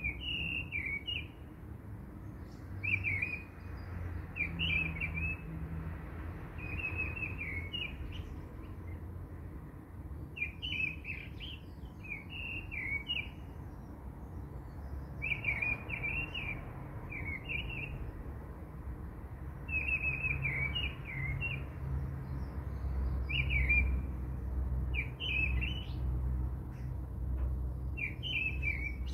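Small birds chirping in short, high, twittering phrases every second or two, over a low steady hum.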